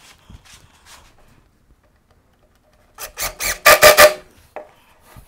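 One-handed trigger bar clamp being ratcheted tight onto a wooden shelf: a quick run of about six loud strokes in just over a second, about three seconds in, with a few fainter, shorter sounds in the first second.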